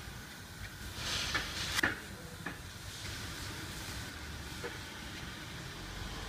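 A cloth rubbing along the steel trailer frame and the edge of a panel as they are wiped clean, with a brief rustling hiss about a second in and a few light knocks, over a steady low hum.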